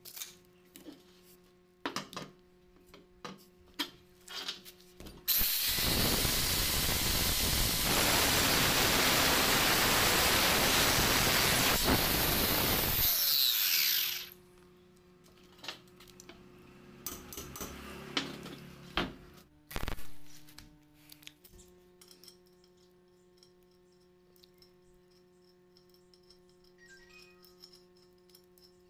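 Stick-welding arc on a steel square tube: a loud, steady hiss that starts about five seconds in, holds for about eight seconds, then cuts off. Scattered ticks and taps come before and after it.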